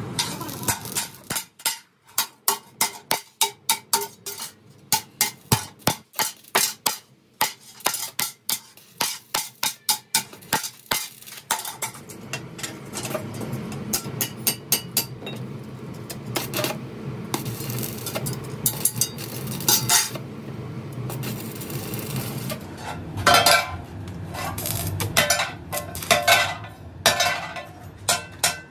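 Stick (arc) welding on steel plate: a quick run of sharp metallic clicks and clinks for the first dozen seconds, then the steady crackling hiss of the arc, with more clinks near the end.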